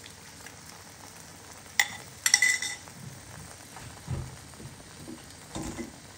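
Beef slices sizzling in a hot wok while a metal wok spatula stirs them, scraping and clanking against the pan. A few sharp ringing clanks come about two seconds in.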